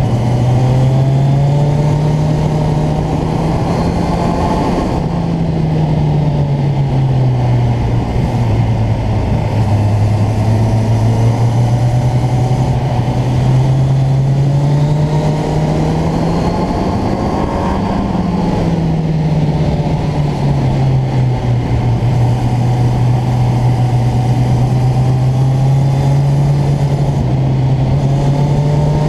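Motorcycle engine running under way, its pitch slowly falling and rising as the throttle is eased and opened through the bends, peaking a little past halfway and then dropping, with wind rush on the microphone.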